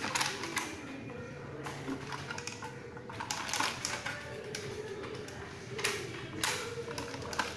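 Irregular plastic clicks and knocks as a toy RC jeep's body and chassis are turned over and handled by hand on a table, with clusters of sharp clicks near the start, around the middle and near the end.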